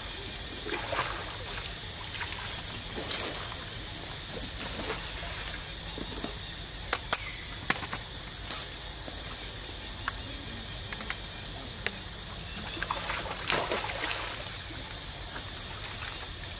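Water sloshing and splashing as monkeys swim, over a steady background hiss. There are a few sharp clicks about seven seconds in and a louder splash about three-quarters of the way through.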